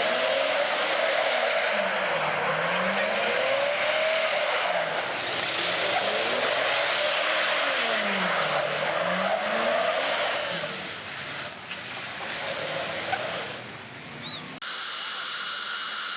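Drag racing cars running hard at the strip, engine pitch sweeping down and back up several times over loud tire and exhaust noise. About fourteen and a half seconds in it cuts to the steady high whine of a jet dragster's turbine.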